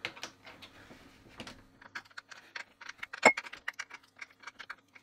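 Rapid small clicks and ticks of an Allen key turning a bolt to fasten a 3D-printed rail kit onto an airsoft rifle, with one sharper click a little over three seconds in. The work is sped up, so the ticks come quickly.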